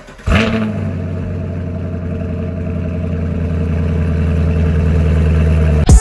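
2017 Camaro SS's 6.2-litre LT1 V8 starting up with a brief rev flare about a third of a second in, then settling into a steady idle through an NPP exhaust with a Borla X-pipe resonator delete. It grows slowly louder and stops abruptly near the end.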